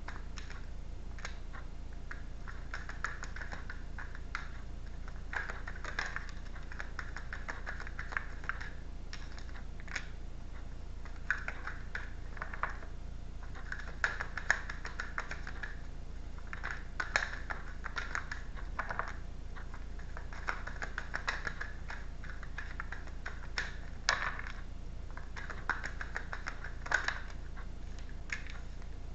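A deck of tarot cards being shuffled by hand: repeated crisp clicks and brief swishing rustles of the cards, coming in short spells a second or two apart.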